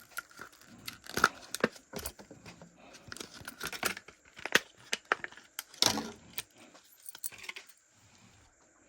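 Plastic fishing-tackle packaging being handled and opened: a run of sharp clicks, crinkling and rattling that dies away about a second before the end.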